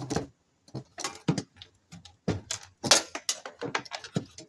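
Irregular sharp clicks and metallic clinks from hand tools and small scrap parts being worked while an air conditioner is stripped for its wire and metal, with the loudest clatter about three seconds in.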